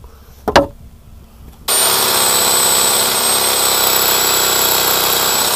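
A sharp knock about half a second in. Then, about a second and a half in, a Fiolent electric jigsaw starts and runs steadily, sawing through a damp log under heavy load, with a thin high whine above the rasp of the blade.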